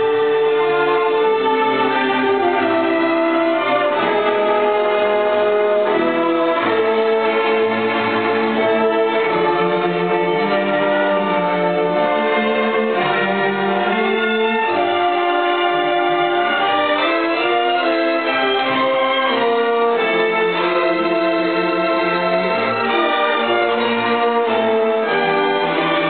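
Orchestra of violins and cellos playing live, with sustained melody notes that shift every second or so over full bowed-string harmony.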